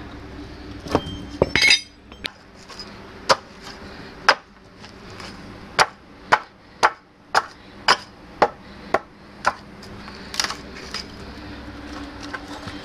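Hammer blows splitting a dry Osage orange log along its crack. The sharp strikes come irregularly at first, then settle into a steady run of about two a second before tapering off.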